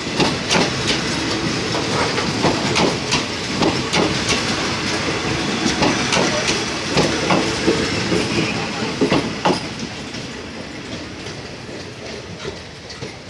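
Passenger carriages rolling past at close range, their wheels clacking over rail joints in quick, uneven pairs of knocks. About ten seconds in, the clatter fades as the last carriage draws away.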